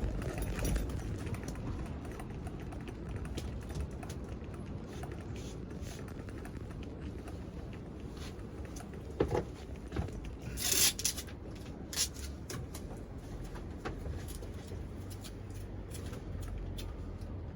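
Scattered small knocks, clicks and handling noises of hand work on wooden bed boards inside a van, with a short rasping sound a little past the middle and a few louder knocks around it.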